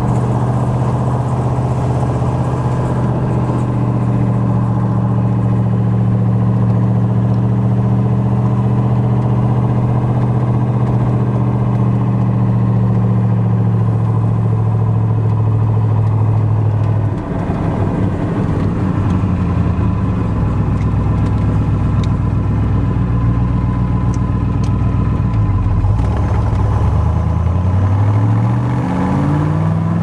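1966 Corvette's 427 cubic-inch big-block V8 with side pipes, heard from inside the car while driving. It holds a steady cruising note for about the first half, dips briefly just past halfway, then climbs in pitch near the end as the car accelerates.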